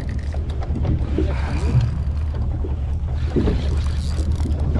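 Small fishing boat's motor running steadily at trolling speed, a low, even hum.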